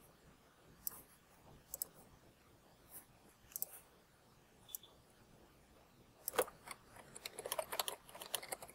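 Faint, scattered mouse clicks, about one a second, then from about six seconds in a quick run of computer-keyboard typing.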